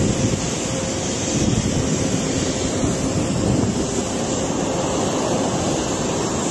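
Steady rushing roar from a burning industrial plant's fire and venting plumes, with a faint steady hum running through it.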